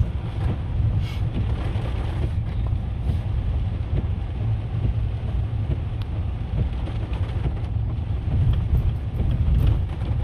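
Steady low rumble of a car on the move, with wind buffeting the microphone.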